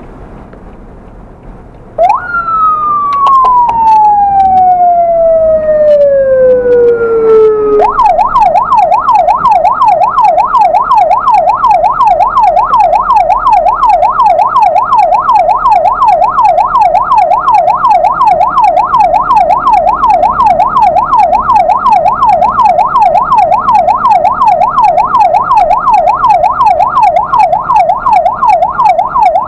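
Ambulance electronic siren switching on about two seconds in. It starts with one long tone falling from high to low over about six seconds, then changes to a fast yelp sweeping up and down several times a second. Before it starts there is only the low running noise of the vehicle.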